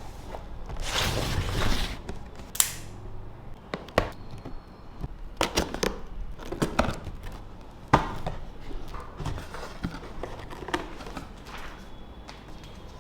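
Camera box and packaging handled during an unboxing: a series of sharp clicks, taps and knocks with short rustling swells of cardboard and plastic.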